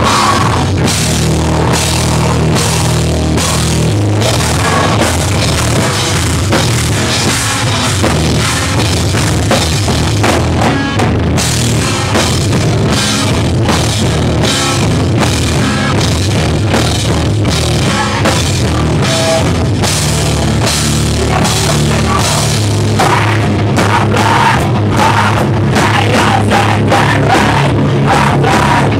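Live rock band playing loudly, the drum kit and cymbals to the fore.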